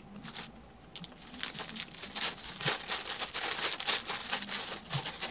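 Paper sandwich wrapper crinkling as a wrapped Subway sandwich is handled and bitten into: a dense run of rustles and crackles from about a second and a half in.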